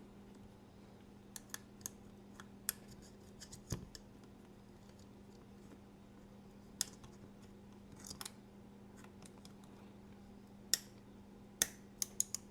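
Small sharp metal clicks and light scrapes, irregular and sparse, as a thin tool tip pries at a magnet set in a carbon fiber knife scale; several quick clicks come close together near the end. A faint steady low hum lies underneath.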